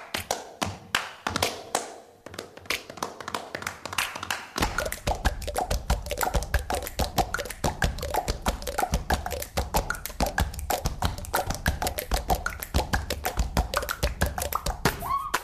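Background music: a fast percussive track of dense tapping clicks, with a deep bass line and short melodic notes coming in about four and a half seconds in.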